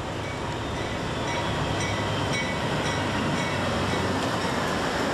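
N scale model train running past on the layout track: a steady whir that gets louder as the locomotives come close, with light clicks from the wheels about twice a second.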